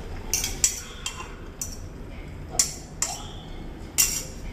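Metal spoon clinking against a ceramic bowl: a string of sharp clinks at irregular intervals, the loudest about four seconds in.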